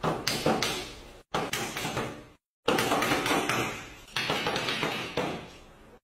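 A hand slapping and knocking on a wooden tabletop in quick runs of sharp hits, broken by short silent gaps.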